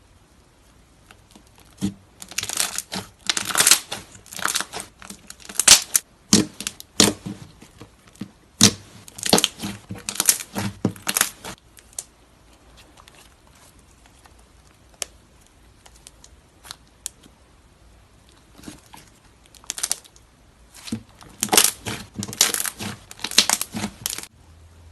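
Slime being handled by hand, crackling and popping in quick runs of sharp clicks: two busy spells with a quieter stretch of scattered pops in the middle.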